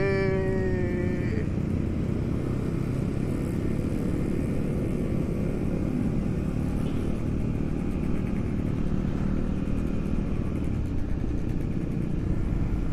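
Supermoto motorcycle being ridden at a steady pace, with a continuous low engine and road rumble that holds level throughout.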